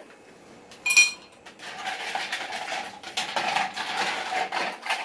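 A glass clinks sharply once about a second in, with a short ring. Then glasses and utensils clatter and rattle on a kitchen counter while a cold cranberry-juice sherbet is made.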